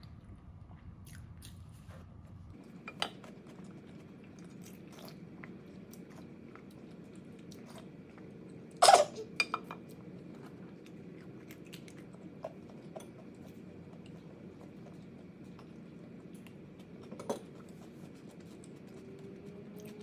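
Close-miked chewing of food, with scattered small clicks and one loud, sharp clatter or crunch about nine seconds in.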